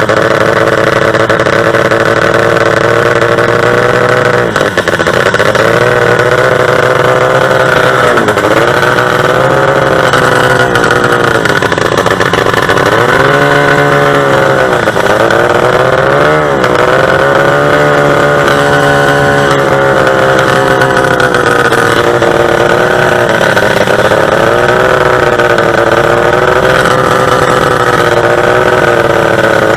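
Two-stroke racing boat engine running hard at high revs, its pitch sagging and climbing back again several times.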